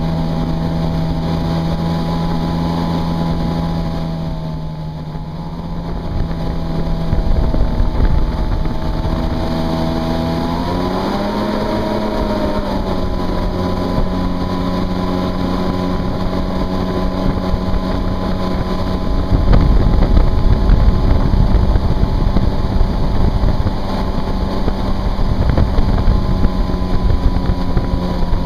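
Yamaha WaveRunner jet ski engine running at speed with a steady droning hum. It eases off briefly about four seconds in and rises in pitch for a moment around eleven seconds in. A heavy low rush of wind and spray hits the microphone, strongest from about twenty seconds in.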